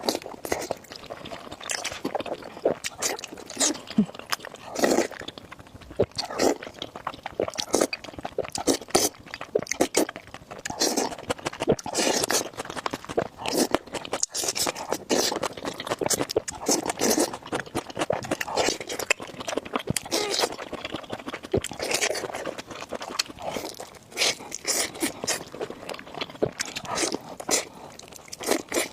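Close-miked eating: irregular crunching, biting and wet chewing of food, with many small sharp clicks and smacks.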